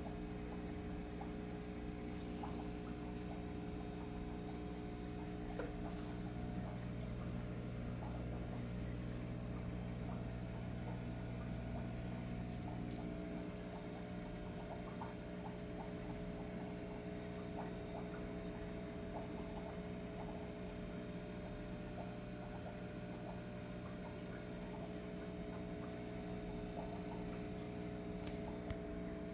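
Steady electrical hum of aquarium equipment such as a pump or filter, made up of several low tones with faint scattered ticks. One of the lowest tones drops out about halfway through.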